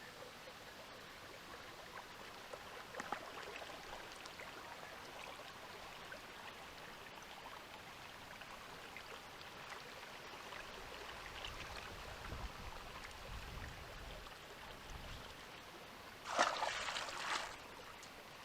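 Faint, steady rush of flowing river water with a few small clicks. Near the end comes a louder burst of splashing about a second long, as small crucian carp are let go back into the river.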